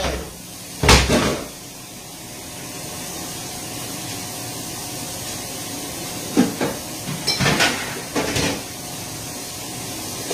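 Kitchen tap running into a stainless-steel sink. Over it come a few hard clunks of a pan being handled in the sink, one about a second in and a cluster of several between about six and eight and a half seconds.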